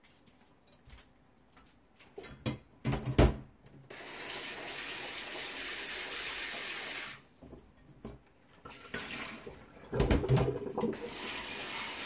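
A kitchen tap running in two stretches of a few seconds each, stopping abruptly in between. Knocks and clanks of the just-emptied stainless steel pot come before and between.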